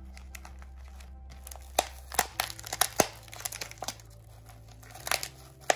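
Clear plastic cup and plastic wrapping crinkling and crackling as they are handled, in sharp bunches of crackles between about two and three seconds in and again near the end. Soft background music with long held notes plays underneath.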